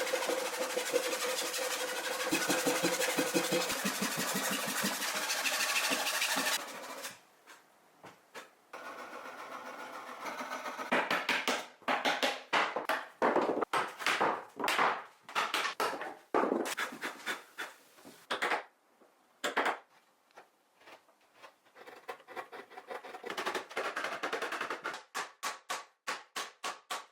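Woodworking tool sounds: a power tool runs steadily for about the first six seconds and then stops. Bursts of short repeated strokes on wood follow, in uneven runs with pauses, ending in a fast run of strokes.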